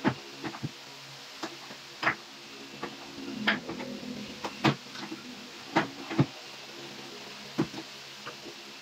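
Irregular knocks and clicks of hand work on laminated melamine board cabinets, as parts and hardware are handled and fitted; about fifteen sharp taps come at uneven intervals over a faint steady hum.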